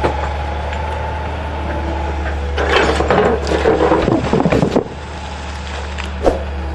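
Heavy machine engine running steadily with a low hum, with a spell of clattering and scraping for about two seconds in the middle and a single knock near the end.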